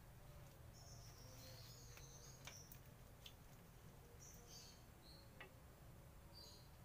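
Near silence, with a few faint light metallic clicks from a brake wheel cylinder being fitted to a drum-brake backing plate, and faint bird chirps.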